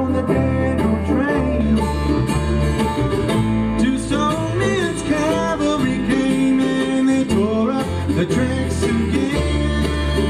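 A bluegrass band playing live: banjo, mandolin, acoustic guitars and upright bass.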